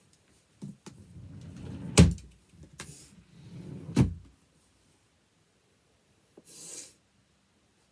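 Two loud knocks about two seconds apart, with rustling and shuffling between them, from someone moving about and getting changed close to the microphone; a short soft rush of noise follows near the end.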